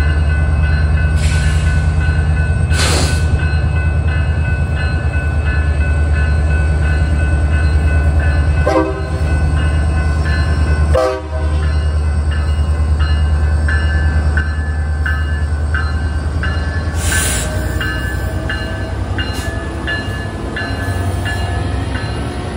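Grade-crossing warning bell dinging at an even pace while a BNSF diesel locomotive's engine rumbles heavily as it rolls slowly through the crossing, with a few short hisses.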